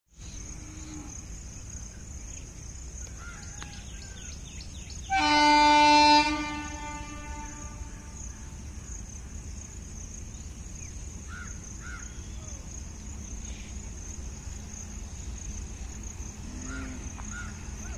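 Indian Railways WAG-7 electric locomotive sounds its horn once, a single steady blast of about a second, about five seconds in, as it approaches with a loaded coal freight train. A steady high buzz and a low rumble run underneath.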